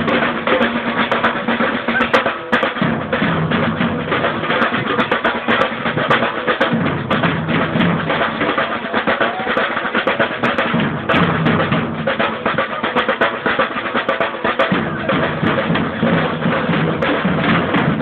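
Samba percussion band drumming a steady samba-reggae groove: deep surdo bass drums under dense, fast higher drum strokes, without a break.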